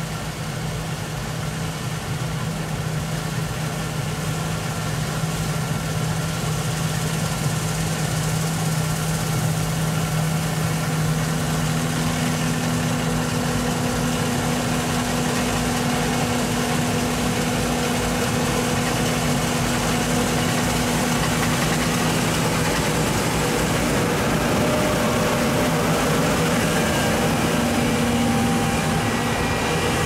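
John Deere T670i combine harvester running as it cuts wheat: a steady machine drone that grows louder as it comes closer, with a second, higher tone joining about ten seconds in.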